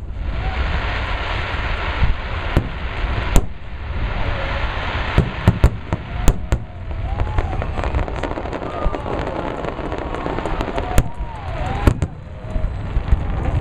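Aerial fireworks shells bursting in quick succession: more than a dozen sharp bangs at uneven intervals over a continuous low rumble and hiss.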